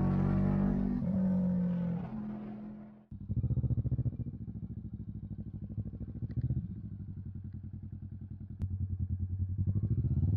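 Motorcycle engine running at road speed with wind noise for about three seconds, easing off. After a sudden break, the engine chugs at low revs with a few brief throttle blips as the bike rolls slowly.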